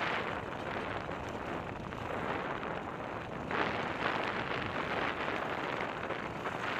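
Dirt bike running under way, its engine blended into a rough roar of wind on the helmet camera's microphone, growing louder about halfway through.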